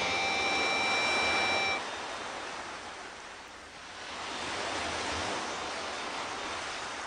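A concert audience's crowd noise between songs: a steady roar that dips about halfway through and swells again. A held tone of several pitches sounds over it at the start and cuts off after about two seconds.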